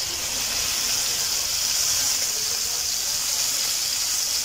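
Chicken rolls sizzling steadily in shallow hot oil in a nonstick frying pan, a continuous high frying hiss, as they are turned over with tongs.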